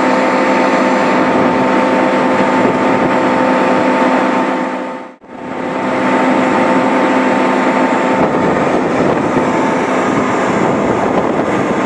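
Case IH Magnum 380 Rowtrac tractor's diesel engine running steadily, with a constant hum. The sound dips out briefly about five seconds in and comes back unchanged.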